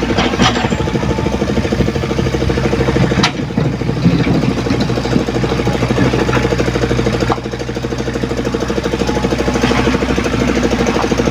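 Komatsu PC75UU mini excavator's diesel engine running steadily, with a few sharp metallic knocks.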